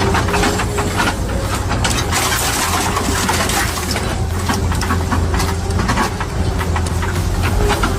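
A heavy machine's engine running steadily, overlaid with many irregular sharp knocks and clatters.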